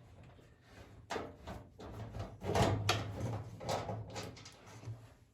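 Lower front panel of a clothes dryer being worked loose and pulled off: a string of irregular knocks, scrapes and rattles, busiest in the second half.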